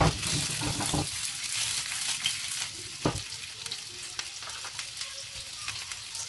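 Chicken Vienna sausages sizzling as they shallow-fry in a little oil in a nonstick frying pan, a dense steady crackle. A few short low knocks of the pan on the hob as it is moved, near the start, about a second in and about three seconds in.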